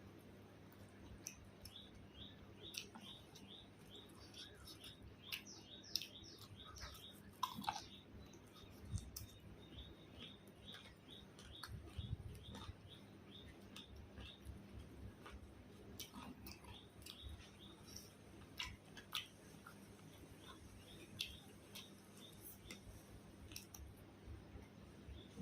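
Faint chewing and mouth clicks of someone eating, with scattered sharp ticks. A run of short, high chirps repeats about three times a second through much of it.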